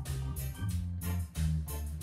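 Reggae riddim instrumental: a bass line and keyboards over a steady programmed drum beat.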